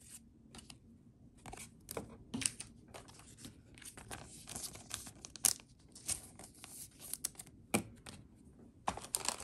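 Plastic-foil trading card booster pack wrapper being torn open and crinkled by hand: irregular small rips and crackles, with a couple of sharper rips in the second half and a denser crinkling run near the end.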